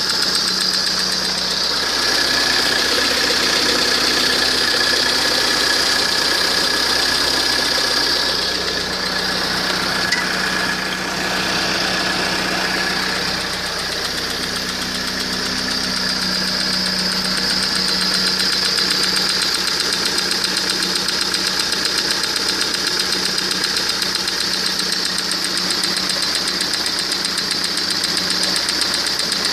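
Car engine running steadily, with a ringing knock that seems to come from the water-pump side. The engine's pistons and connecting rods are new, with only 180 km run on them.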